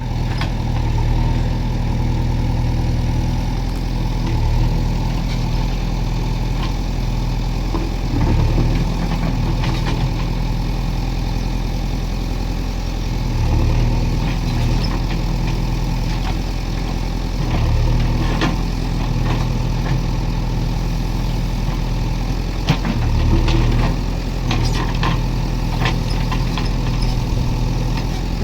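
Diesel engine of a JCB backhoe loader running, swelling and easing every four to five seconds, with a few sharp clanks scattered through.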